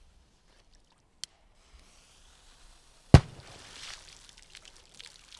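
A firecracker exploding in the water: one loud, sharp bang about three seconds in, followed by about a second of splashing water falling back. A short click comes about a second in.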